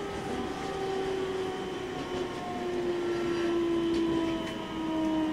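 JR East E721-0 series electric train running on the rails: rumble of the wheels with a motor whine of a few tones that slowly fall in pitch as the train slows.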